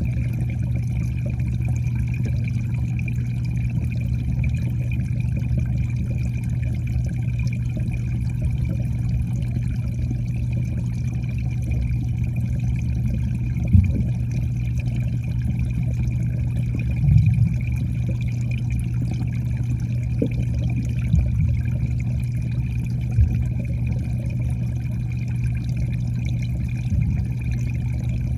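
Muffled water noise as heard by a microphone submerged in a koi pond: a steady low hum and rumble with a faint higher tone above it. From about halfway, a handful of brief soft knocks break through.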